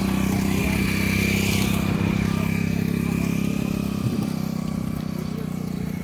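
A small motorcycle's engine running steadily as it passes close by. It is loudest about a second in, then slowly fades away.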